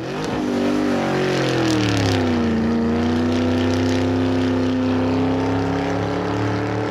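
A race car engine running loud. Its pitch drops over the first two seconds, then holds steady.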